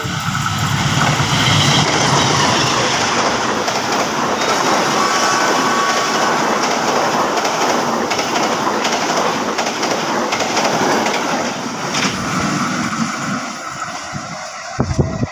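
Passenger train passing close by: a loud, steady rush of wheels on rails as the coaches go past. It eases off a little in the last few seconds as the train draws away.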